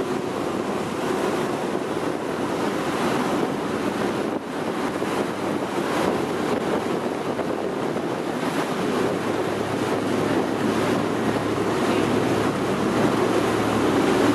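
Wind buffeting the microphone and water rushing along the hull of a moving boat, a steady noise with a low engine hum underneath that grows plainer in the second half.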